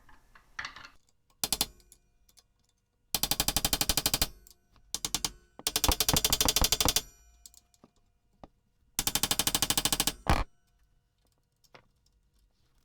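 Impact wrench hammering in short bursts, about five in all, the longest a second or so each, with rapid, even blows and pauses between.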